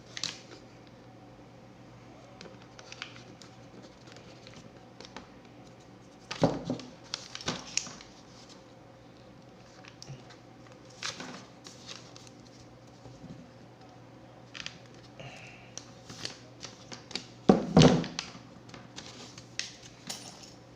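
An RJ-45 crimping tool and a UTP cable with its plastic RJ-45 plug being handled and crimped: scattered small clicks and rustles, with two louder clunks about six and eighteen seconds in.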